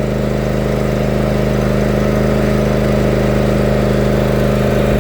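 Riding lawn mower engine running steadily while the mower is driven along.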